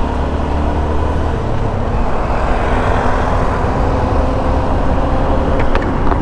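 Motorcycle engine running steadily while riding on the road, with steady wind rush on the microphone.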